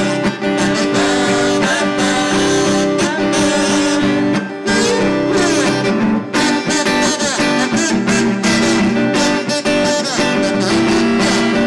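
Live acoustic music: an acoustic guitar strummed as accompaniment, with a sustained melody line held over it.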